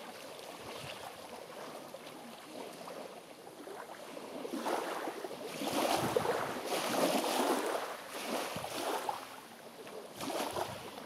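Small lake waves lapping on the shore: a soft wash of water noise that grows louder about halfway through, then rises and falls in surges.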